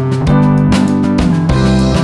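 Background music: a guitar-led instrumental with bass and a steady drum beat.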